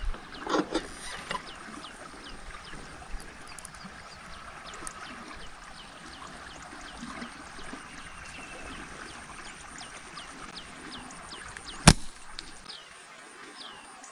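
Faint rural outdoor background with a short, high, falling chirp repeated two or three times a second. One sharp snap comes near the end.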